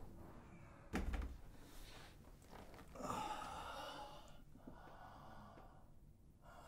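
A dull thump about a second in, then a man's long, heavy sigh breathed out through the mouth.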